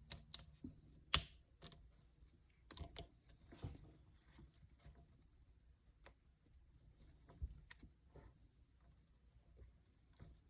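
Scattered small plastic clicks and taps as a 3D-printed PETG-CF sleeve is handled and worked onto a quick-disconnect hose connector, with one sharper click about a second in.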